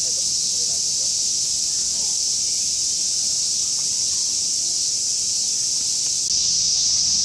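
A chorus of cicadas shrilling in a steady, high, hissing drone that does not let up, stepping slightly louder about six seconds in.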